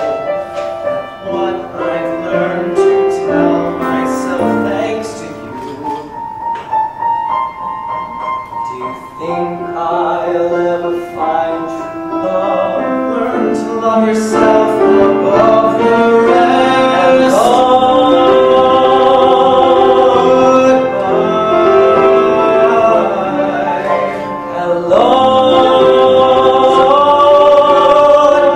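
A solo voice sings over instrumental accompaniment. It grows louder about halfway through, with long held notes, and near the end a second voice joins in.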